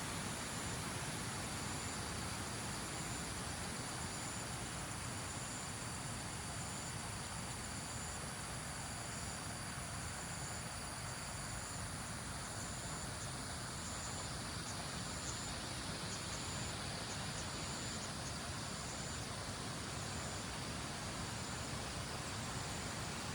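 Outdoor campsite ambience: a high, steady insect trill, typical of crickets, over a continuous rushing noise. The trill breaks off briefly several times in the second half.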